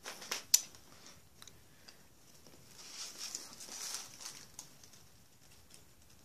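Faint handling noise from a handheld tablet being moved around: a few sharp clicks in the first second, then a soft rustling swell about three to four seconds in.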